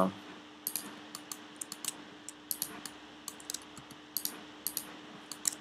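Computer keyboard keys and mouse buttons clicking, about a dozen short clicks at uneven spacing, over a faint steady hum.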